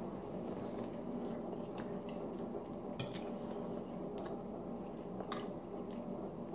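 Metal fork clinking and scraping on a plate while cutting French toast, with chewing, over a steady low hum. The clicks are scattered and light; the sharpest comes about three seconds in.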